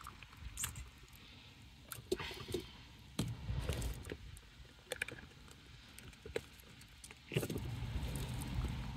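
Faint wet handling sounds of hands working inside a plucked rooster carcass during evisceration: soft clicks and squishes as the innards are pulled loose. A low rumble comes and goes twice.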